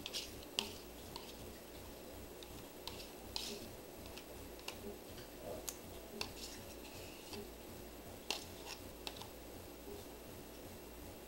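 Spoon scraping sour cream out of a plastic tub into a bowl: irregular soft clicks and short scrapes against the tub, with wet dollops landing.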